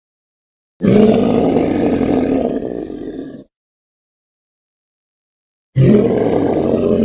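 Two deep, rough ape roars used as sound effects, each lasting about two and a half seconds, with dead silence before and between them; the second starts about six seconds in.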